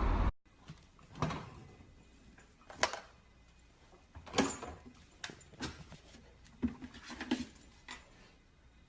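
A steady noise cuts off abruptly right at the start. Then come scattered light knocks and clicks as a husky puppy climbs into an open refrigerator, bumping the fridge's shelves and plastic drawer.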